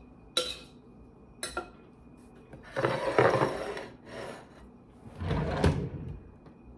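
Kitchen handling sounds: two sharp clinks of cutlery or china, each ringing briefly, then two longer rattling, scraping stretches, as of a cutlery drawer being pulled open and pushed shut.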